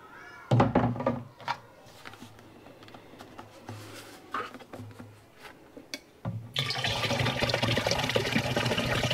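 A few knocks and clunks of handling, then about six seconds in, unfiltered water starts pouring steadily from a plastic water cube into the AquaBrick filter's container.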